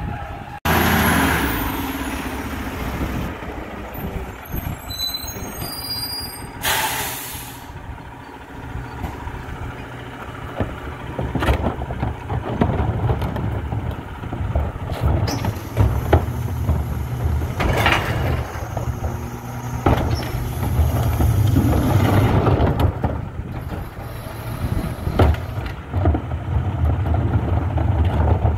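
Rear-loading recycling truck's diesel engine running, with a loud air-brake hiss about a quarter of the way in and scattered knocks and clatter as carts are tipped and recyclables fall into the hopper. The engine rumble grows louder in the second half.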